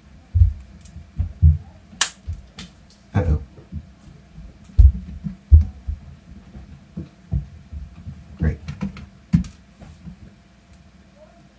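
Irregular handling knocks, low thumps and small clicks of a OnePlus 3 smartphone's replacement screen being pressed and fitted into the phone's back case, with one sharp click about two seconds in. The knocking dies down near the end.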